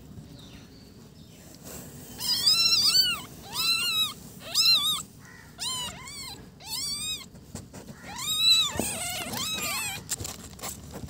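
Newborn kittens mewing: a string of about eight high-pitched, arching cries between two and ten seconds in.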